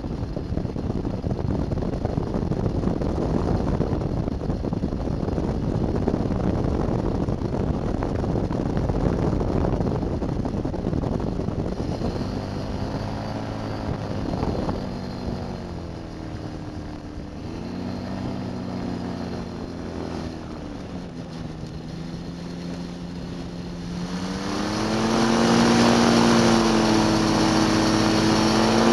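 Rotax 582 two-stroke engine of a Beaver RX550 float ultralight, heard from the open cockpit. The first half is mostly wind rush over the engine; from about halfway the engine note shows clearly, rising and falling with throttle changes, and it grows much louder about four-fifths in as power is added.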